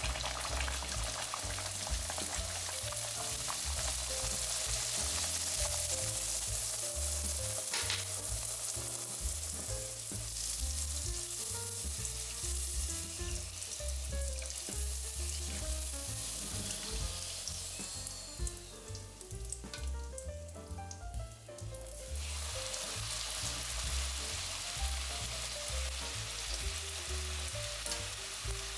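Flour-and-water dough frying in hot oil in a pan: a steady sizzle that thins out for a few seconds about two-thirds of the way through, then comes back in full.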